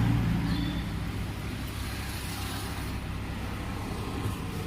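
Water being poured into an electric kettle, the splashing fading as the pour tails off, over a low steady engine-like hum.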